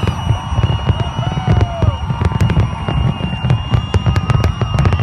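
Large fireworks display: a constant low rumble of bursting shells with many sharp crackles and pops over it. A steady high tone runs through.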